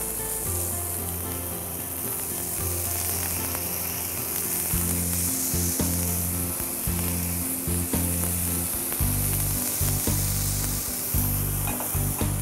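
Red snapper fillet sizzling steadily as it pan-sears in hot olive oil in a non-stick frying pan, with low background music underneath.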